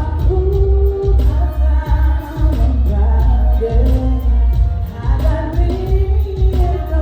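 Live R&B band music: a singer holding and sliding through a melody over heavy bass and a steady drum beat.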